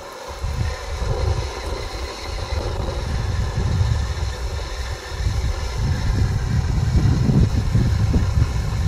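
Ground fountain firework burning, spraying sparks with a steady hiss, over a heavy, uneven low rumble.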